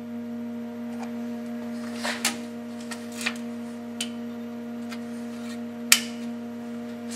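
A steady electrical hum with one low pitch and its overtones, with light clicks and rustles as a small magnet and a sheet of paper are set against the toolpost, and one sharp click about six seconds in.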